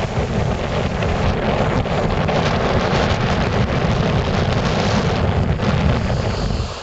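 Wind buffeting the camera microphone, a steady low rumble, dropping off sharply near the end.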